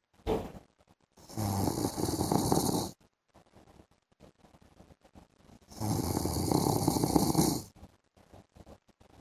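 Man snoring in his sleep: two long snores, each about a second and a half, some four seconds apart, with a brief sound just after the start.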